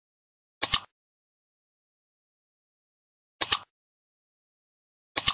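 Mouse-click sound effect, heard three times. Each is a quick double click, like a button pressed and released.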